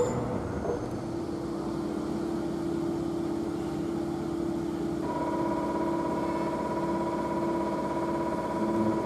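SBB Re 460 electric locomotive standing, its on-board equipment giving a steady hum; about five seconds in a higher steady whine sets in alongside it.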